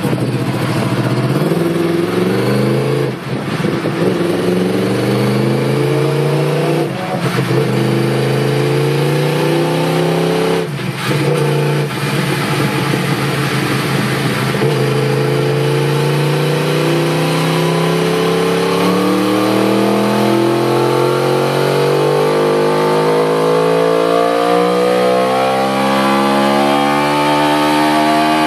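Yamaha R1's inline-four engine revving hard on a chassis dyno. It climbs through the gears with three brief breaks in the first eleven seconds or so, then makes one long steady rise in revs under load in a single gear.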